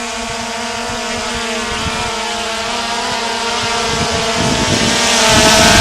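Drone propellers and motors running with a steady whine in several even tones, getting louder toward the end, with wind buffeting the microphone from about halfway through.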